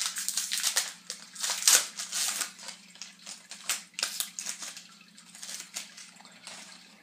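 A trading-card pack wrapper being torn open and crinkled, with the cards handled: a dense run of crackling rustles for the first four seconds or so, then sparser, quieter handling noises. A low steady hum sits underneath.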